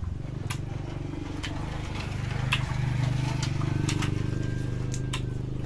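An engine running steadily with a low hum that swells a little in the middle. Sharp clicks of chopsticks and tableware sound now and then over it.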